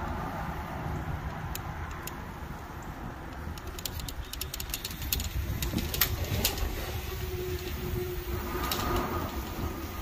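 Wind on the microphone and tyre rumble from an e-bike riding along a paved trail and into a concrete underpass, with a run of sharp ticks and clicks in the middle.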